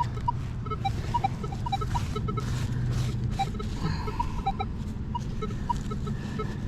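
Wind rumbling on the microphone, with rustling and scattered brief high pips.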